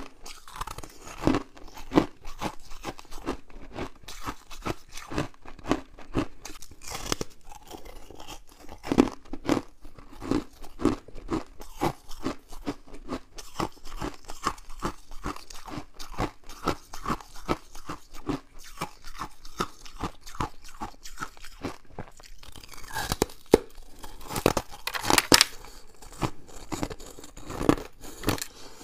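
Freezer frost being bitten and chewed close to the microphone: a continuous run of short, crisp crunches, louder for a few seconds near the end.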